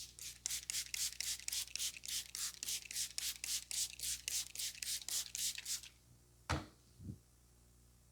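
Hands rubbing briskly in a head massage, rapid even strokes about four or five a second for some five seconds. Then two sharp thumps about half a second apart, the first louder.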